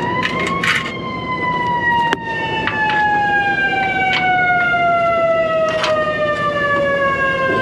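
Fire engine siren climbing to its top pitch about a second in, then falling slowly and steadily in pitch. A few sharp clicks sound over it.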